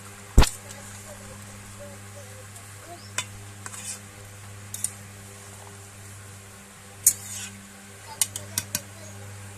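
Metal spatula stirring a simmering fish and vegetable curry in an aluminium kadai, scraping and clinking against the pan over a steady sizzle. There is one loud clank about half a second in, and a cluster of quick clinks near the end.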